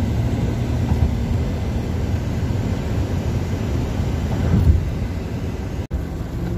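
Steady road and wind noise with a low rumble from a pickup truck driving at highway speed, heard inside the cab. The sound drops out for an instant near the end.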